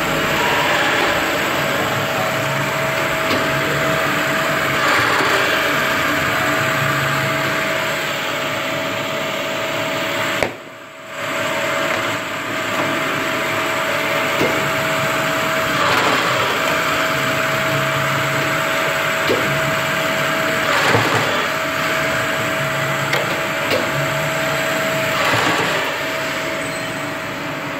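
Ljungby Multidriller four-head paper drilling machine running, with a steady motor hum and a constant whine. A brief surge of noise comes about every five seconds as the hollow drill bits go down through the paper stack.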